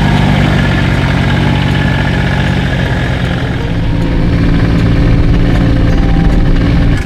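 Side-by-side utility vehicle's engine running steadily.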